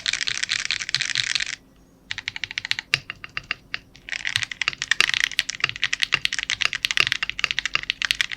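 Typing on a modded Epomaker Mini Cat 64 mechanical keyboard with Akko CS Radiant Red switches and XDA-profile keycaps: a fast run of keystrokes, a brief pause, a few scattered key presses, then fast typing again from about four seconds in.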